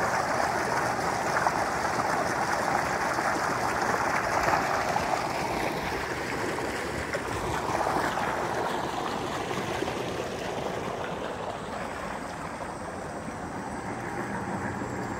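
Water gushing from a tube well's discharge pipe and splashing into a concrete tank, a steady rush that grows somewhat quieter in the second half.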